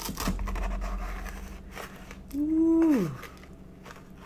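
A metal spatula scraping and rubbing against a metal sheet pan as it works under a slice of crescent-dough pizza. A little past two seconds in, a woman gives a short vocal hum that falls in pitch, the loudest sound.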